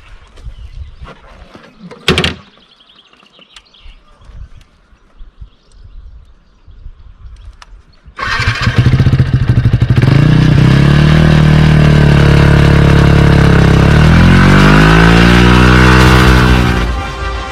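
Yamaha YZF-R125's single-cylinder four-stroke engine through a full Akrapovic exhaust system. After a sharp click, it starts about eight seconds in, runs unevenly for a moment, then settles to a steady idle. It is then revved up and down a couple of times.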